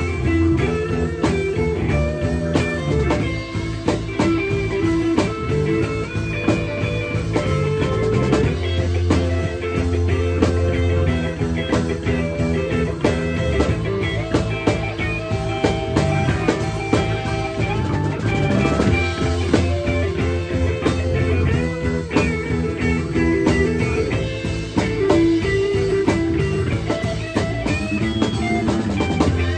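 A live band playing: electric guitar, bass guitar and drum kit together, a dense, steady groove.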